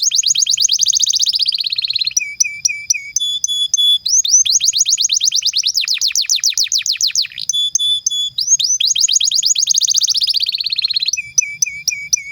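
Domestic canary singing a long song: fast trills of rapidly repeated downward-sweeping notes, broken by short runs of steady whistled notes. The song stops suddenly at the very end.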